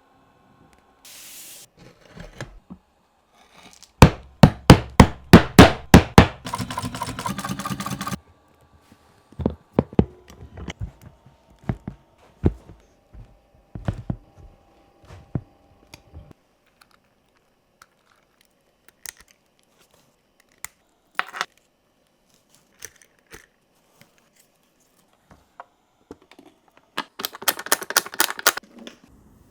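Leatherworking hand-tool strikes: a fast run of about ten hard knocks, roughly four a second, like a mallet driving a punch or chisel, then a couple of seconds of buzzing. Scattered single knocks and taps follow, and a quick run of strikes comes near the end.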